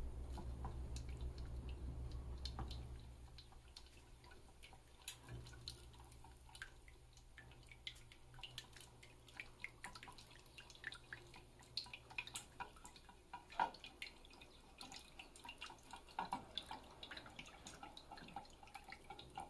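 Wire whisk beating egg yolks in a plastic bowl: faint, irregular light clicks and ticks, with hot broth dripping in from a ladle as the yolks are tempered. A low hum stops about three seconds in.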